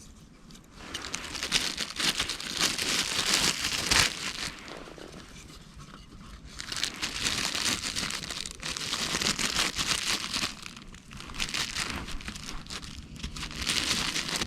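Crinkling and rustling, as of a material being handled, in three spells of a few seconds each, with a sharp click about four seconds in.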